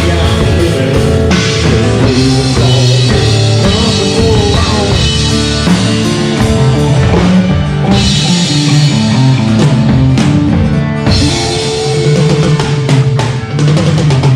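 Live rock band playing an instrumental passage: drum kit and guitar, loud and steady, with the drums coming to the fore near the end.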